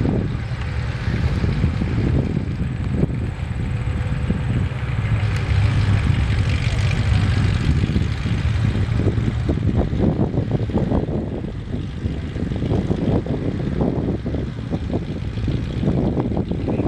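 Diesel engine of a John Deere 120C LC excavator running steadily under load, with wind buffeting the microphone in the second half.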